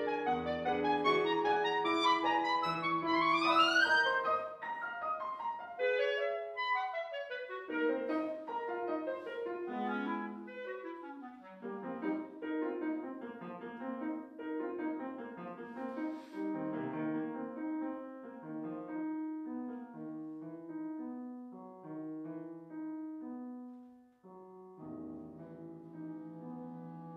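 Clarinet and piano playing a classical concertino. The clarinet plays a loud rising run a few seconds in, then drops out while the piano carries on alone, and comes back in near the end after a brief pause.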